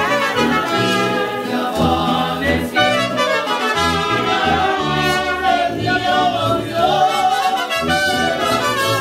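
Music played by brass instruments, trumpets and trombones, with singing voices.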